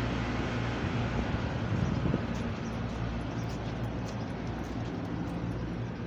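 Rooftop air-conditioning equipment running: a steady low hum under an even rushing of air.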